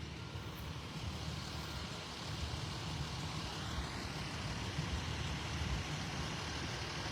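Steady low vehicle engine rumble with a hiss of traffic that builds a little partway through.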